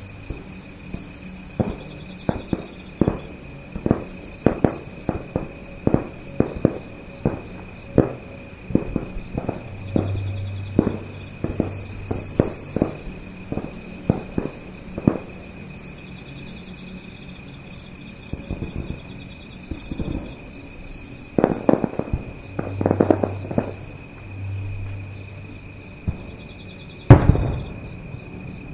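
Aerial fireworks shells bursting in quick succession: a string of sharp bangs for roughly the first half, then after a lull a dense cluster of reports, and the loudest single bang near the end.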